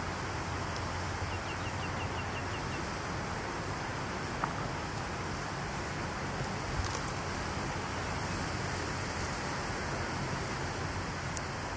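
Steady outdoor background noise, an even hiss with a low rumble underneath. A brief run of about eight quick high chirps comes a little over a second in, and a few faint clicks are scattered through.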